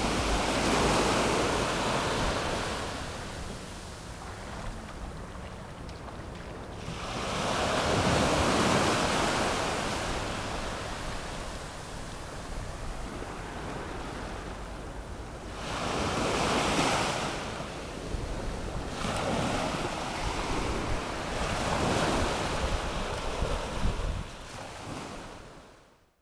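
Small sea waves breaking and washing up a sandy beach at the water's edge, the surf swelling about four times several seconds apart, with wind buffeting the microphone. The sound fades out near the end.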